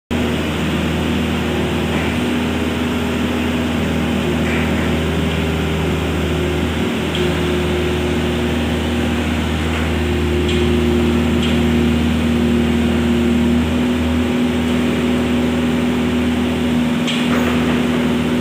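Kubota mini excavator's diesel engine running steadily under working load, a little louder from about halfway through, with a few light knocks of the machine working.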